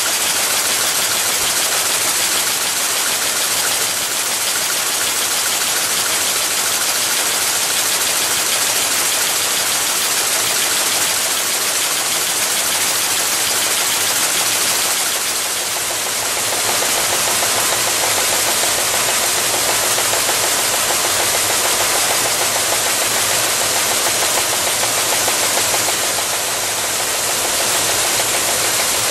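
Yuanrox high-speed can body welding machine running at production speed: a steady, dense mechanical noise with a strong hiss, dipping slightly in loudness about halfway and again near the end.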